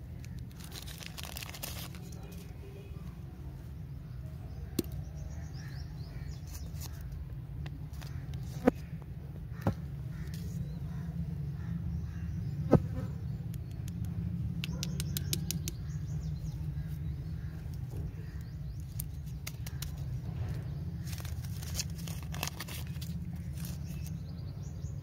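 Candy bar wrapper crinkling and rustling as it is unwrapped and handled, in three bursts of fine rapid crackle, with a few single sharp clicks between them. A steady low hum lies under it all.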